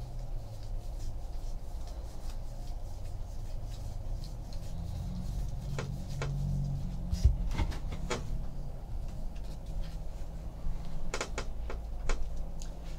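Trading cards being handled and sorted on a table: a few light taps and clicks over a low steady room hum.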